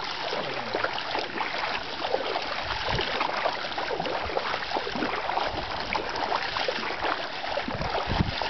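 Several people wading through shallow water, their steps splashing and sloshing steadily, with a few dull low thumps.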